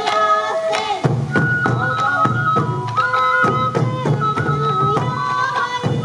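Sansa odori festival music: hand-held sansa taiko drums struck in a steady beat under a high, stepping melody of the kind played on bamboo flutes. A lower part joins about a second in.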